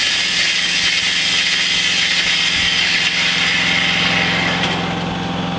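Homemade band-saw lumber mill running, its blade sawing through a log over the steady hum of its motor. The higher cutting noise drops away near the end.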